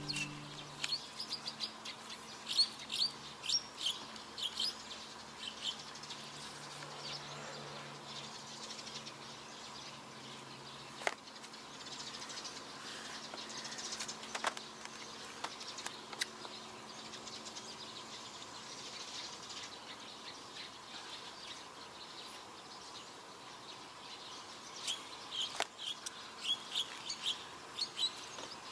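Small birds chirping in quick clusters of short high calls, busiest near the start and again near the end, with a few single sharp clicks in between.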